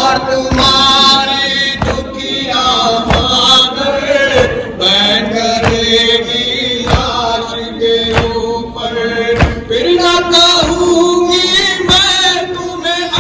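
Male voices chanting a Muharram noha, with the men's hands striking their chests in matam about once every second and a bit to keep the beat.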